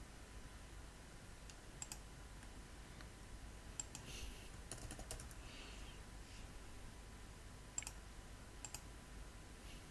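Faint computer mouse clicks, several in quick pairs, with a short stretch of keyboard typing a little past the middle.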